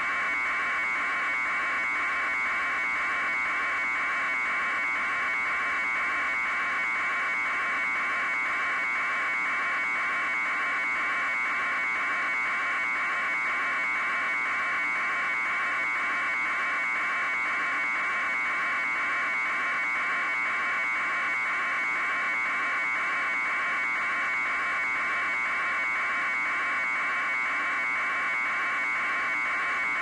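A steady buzz, pulsing evenly a few times a second, that holds at one level without a break.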